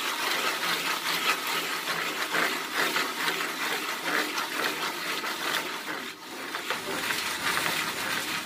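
Jiffy Pop aluminium foil pan being shaken back and forth over a stove burner: a continuous scraping rattle, broken by a brief pause about six seconds in. The kernels are heating but not yet popping.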